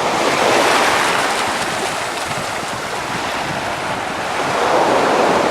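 Ocean surf breaking and washing in: a steady rush of noise that swells about half a second in and again near the end.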